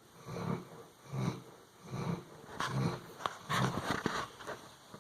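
Puppy snoring: a regular run of short, low snores, a little over one a second, with a few small clicks in the second half.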